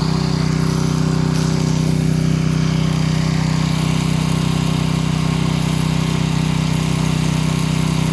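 Small gas engine of a pressure washer running steadily at constant speed, with a steady hiss over it.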